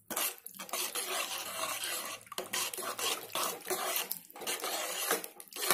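A spatula stirring and scraping a wet mash of potato and vegetables around a pan, in repeated strokes with a few short pauses.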